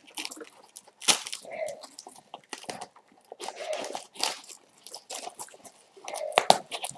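Irregular scratchy rustles and sharp clicks of a nylon MOLLE pouch and its straps being handled and worked through webbing.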